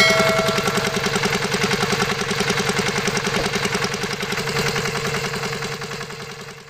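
Miniature diesel water-pump engine running steadily with a rapid, even beat. A brief ringing tone sounds at the very start, and the running fades out near the end.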